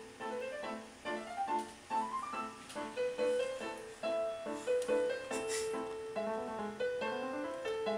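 Electronic keyboard with lighted keys sounding a continuous stream of piano-voice notes, single notes and chords with a few quick rising runs.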